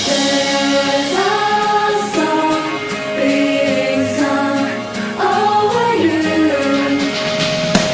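Background music: a song with sung vocals holding long, sliding melody notes over a sparse backing with no deep bass.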